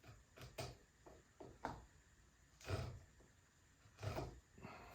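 A few faint short knocks and scrapes of a marking gauge worked against a wooden axe handle blank while scribing a centre line, the two loudest about three and four seconds in.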